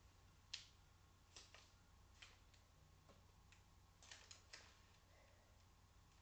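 Near silence broken by about ten faint, short clicks and rustles as a paper note and a packaged parcel are handled, most of them in the first five seconds, over a low steady hum.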